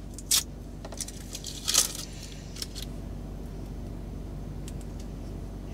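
Adhesive bandage wrappers being torn open and the backing peeled off, a few sharp paper crinkles and rips in the first two seconds or so, over a steady low hum.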